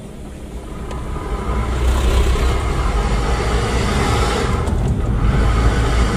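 Car driving along a road: engine rumble with tyre and road noise that swells about two seconds in, dips briefly near five seconds, then picks up again.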